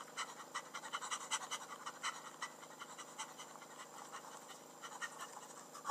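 Faint, quick panting of an exhausted cartoon character, with small irregular clicks and smacks, densest in the first three seconds and thinning out after.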